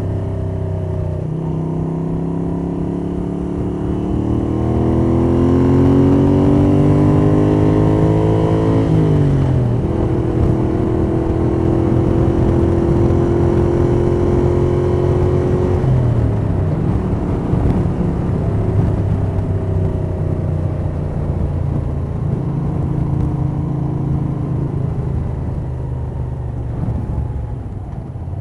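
1982 Moto Guzzi 850 Le Mans III's air-cooled V-twin, through Lafranconi Riservato Competizioni exhausts, heard from inside the rider's jacket pocket with wind noise and valvetrain sound. The revs climb under acceleration, fall sharply about nine seconds in and hold steady, then fall again a little past halfway and run on lower.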